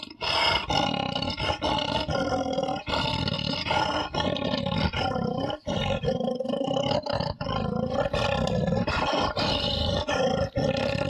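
A person's voice roaring and growling through an empty cardboard tin-foil roll to imitate a bear. It is loud, a run of long roars with brief breaks between them.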